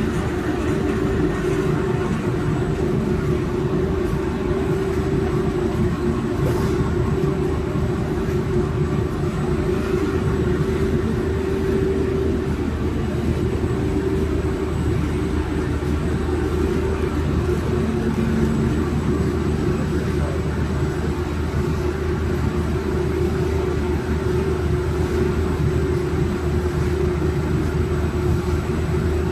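Six-colour central-impression flexographic printing press running steadily at production speed, printing PE film: an even mechanical drone with a steady mid-low hum.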